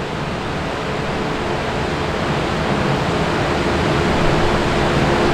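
Jeep Wrangler JLU's 3.6-litre Pentastar V6 under load on a chassis dyno, its engine, 40-inch tires and dyno rollers making a broad, rushing noise that grows steadily louder during a power pull.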